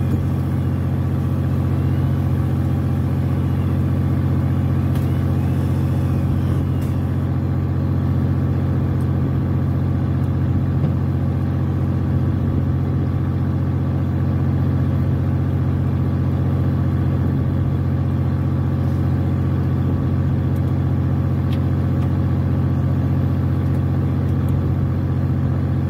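A fishing boat's engine running steadily: a constant low drone that holds the same level throughout.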